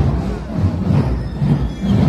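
Military marching drum band playing in procession, its drums keeping a steady beat of about two strokes a second.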